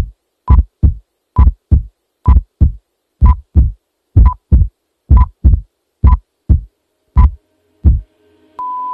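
Heartbeat sound effect: pairs of deep thumps, lub-dub, about one pair a second, stopping near the end. A steady high tone over a low drone starts just before the close.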